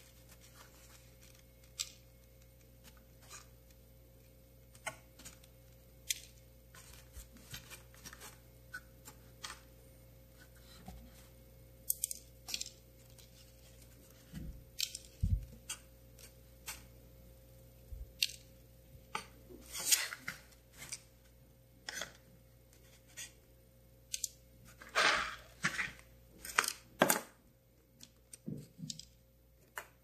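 A folded sheet of paper being handled by fingers: scattered short crinkles and rustles as it is pressed and shifted, with a denser, louder bunch near the end.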